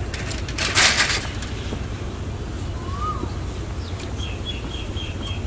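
Birds calling in open country: a single rising-and-falling whistle about three seconds in, then a rapid series of short high chirps, about five a second, near the end. A loud, short rustling burst about a second in, over a steady low rumble.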